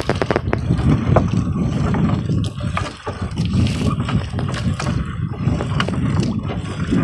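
A fishing net being hauled aboard a small outrigger boat by hand: scattered knocks, clicks and rustles of net against the boat, over a steady low rumble.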